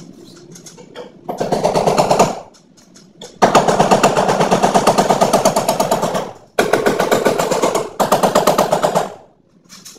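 Power drill run in four bursts, the longest about three seconds, each with a rapid even rattle, while the wall speaker's bracket is fixed to the wall.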